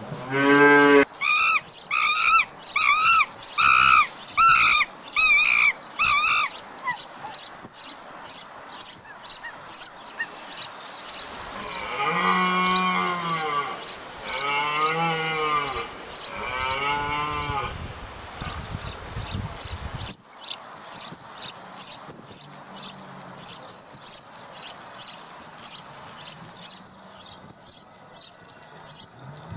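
A sequence of animal calls over a regular high chirping of about two a second. A cow's moo ends in the first second, then comes a run of about six short, higher calls, and about twelve seconds in, three longer cattle moos rise and fall in pitch. The last third holds mainly the rhythmic chirping with faint low calls.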